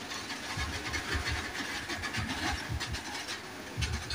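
Loaded freight train's open wagons rolling slowly past with brakes applied, steel wheels knocking and rumbling irregularly on the rails over a steady hiss.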